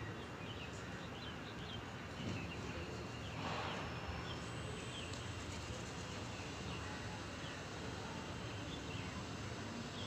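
Faint, scattered short chirps of small birds over a steady outdoor background hum, with a brief rushing noise about three and a half seconds in.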